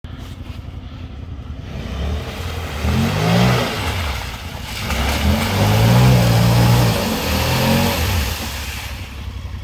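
Honda Pioneer 1000-5 side-by-side's parallel-twin engine revving up twice, about three seconds in and again from about five seconds, as it drives through a mud hole, with mud and water splashing off the tyres.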